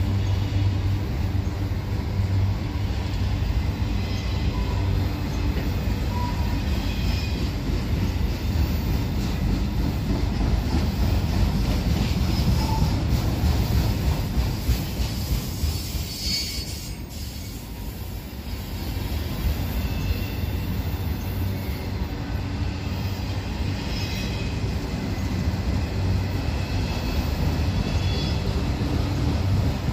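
Union Pacific manifest freight cars rolling past at track side with a steady heavy rumble and wheel clatter, and brief high wheel squeals now and then. The sound eases off for a moment about halfway through, then builds again.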